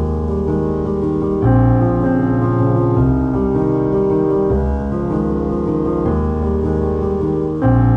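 Calm piano music, with sustained chords changing every second or two.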